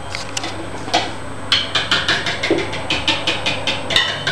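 Mascarpone being beaten by hand in a bowl, the utensil knocking rapidly and evenly against the bowl's side at about six strikes a second, starting about one and a half seconds in.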